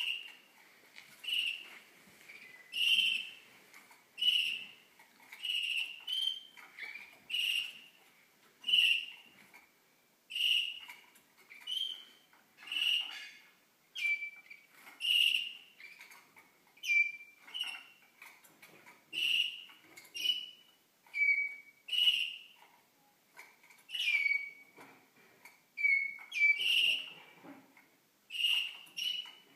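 Young Waterslager (Malinois) song canaries singing. Short whistled phrases repeat about every second and a half, and some of them end in a brief falling note.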